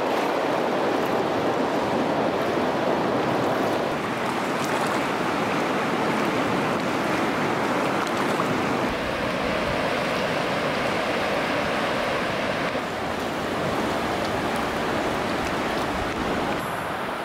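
River water flowing steadily over riffles, a continuous wash of moving water.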